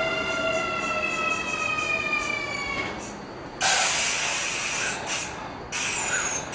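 Kintetsu 9820 series electric train braking to a stop. Its inverter whine falls slowly in pitch as a stack of tones and fades out about three seconds in. Two loud, sudden bursts of hiss follow, the second with a short falling whistle.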